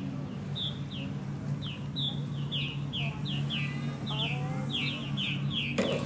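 Purple martins calling: a rapid series of short, falling chirps, about four a second, over a low steady hum.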